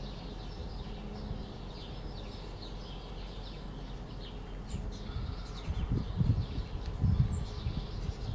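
Chicks peeping softly and repeatedly, small high chirps under a brooding hen. Irregular low rumbling grows stronger in the second half.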